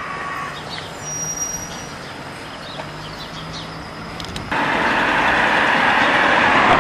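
Road traffic noise: a steady engine hum, then about four and a half seconds in the noise jumps abruptly louder to a broad rushing sound of traffic going by.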